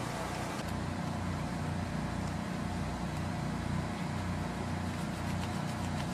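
Steady low engine rumble, with a few faint clicks over it.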